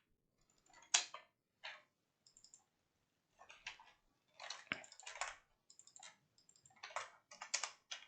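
Computer keyboard typing: scattered, faint keystroke clicks, some single and some in short runs of a few keys, with pauses between.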